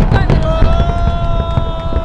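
Fireworks bursting and crackling in quick succession over a low rumble. From about half a second in, a long held shout from a spectator rises over the bangs.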